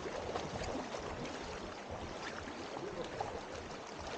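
Shallow river water flowing and splashing around people wading in it, a steady rush with a few small splashes, with faint distant voices.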